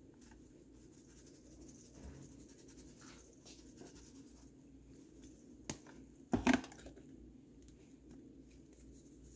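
Spice containers handled and shaken over a stainless steel mixing bowl of seasoned chicken pieces: faint light taps and rattles, a sharp click just under six seconds in, and a short louder clatter of clicks soon after, over a steady low hum.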